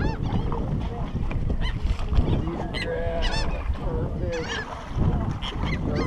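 Seabirds calling: a string of short calls that rise and fall in pitch, several in quick succession about three seconds in and again near the end, over steady wind and water noise.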